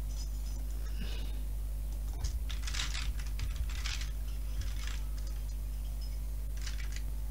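Computer keyboard typing in short bursts of clicks, a quick run about two seconds in and another near the end, over a steady low hum.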